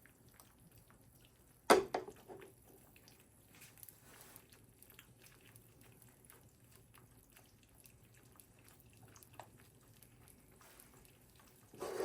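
Eggs frying in butter in a pan, a faint sizzle with scattered small crackling pops. A sharp knock about two seconds in, with a smaller one just after, and another short clatter at the very end.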